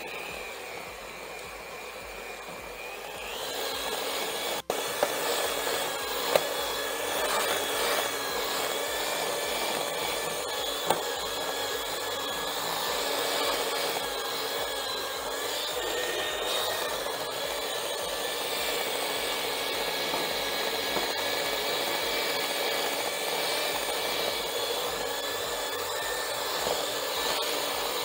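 Electric hand mixer running steadily, its beaters whipping a thick bowl of chocolate buttercream frosting. The motor whine gets louder about three and a half seconds in, and there are a few sharp clicks.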